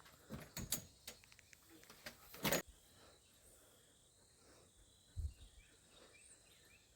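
Quiet outdoor ambience with faint bird chirps, broken by a few light clicks and one brief rustling burst about two and a half seconds in.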